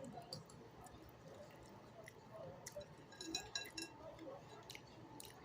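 Quiet eating sounds: soft chewing and small clicks, with a utensil clinking a few times against a dish a little over three seconds in.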